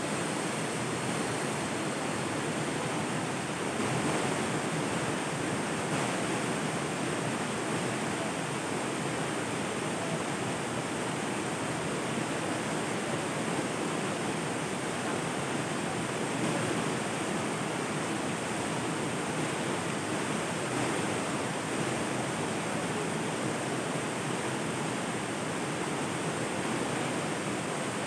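River water flowing, a steady and even rushing.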